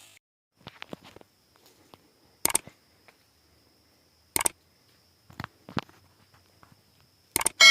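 Sharp, short cracks of an air rifle being fired, several spaced a second or two apart, with the loudest about two and a half and four and a half seconds in and a quick double crack near the end.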